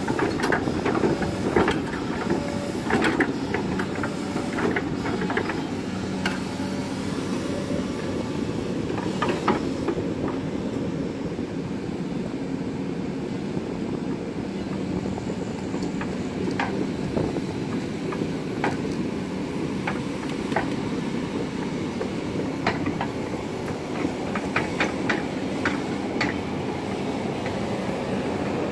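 Excavator's diesel engine running steadily while its bucket pushes and scrapes soil back into a hole, with scattered sharp metal clanks and knocks, several together near the end.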